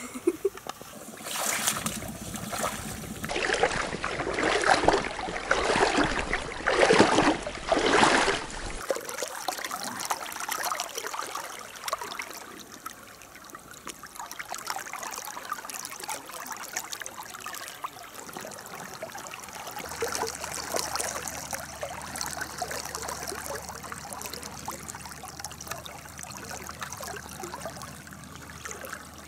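River water flowing over a shallow riffle, a steady babbling wash. It is louder and more uneven for the first several seconds, then settles.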